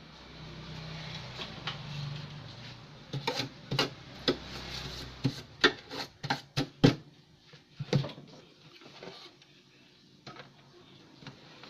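A CRT TV's circuit board and plastic chassis parts being handled and fitted back together: rubbing and sliding at first, then a run of sharp clicks and knocks in the middle, then quieter handling.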